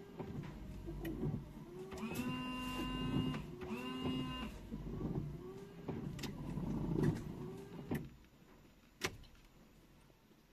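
Maruti Suzuki Alto K10's windshield wipers, fitted with a new 21-inch Bosch Eco blade, sweeping back and forth: the wiper motor whines up and down with each stroke, with a few steadier, higher whines in between. The wipers stop about eight seconds in, and a single click follows about a second later.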